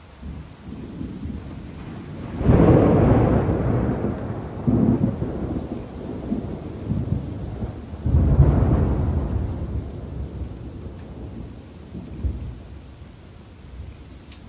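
Thunder rolling during a thunderstorm: two loud, deep rumbles, one about two seconds in and another about eight seconds in, each breaking fast and then fading over several seconds, over a steady hiss of rain.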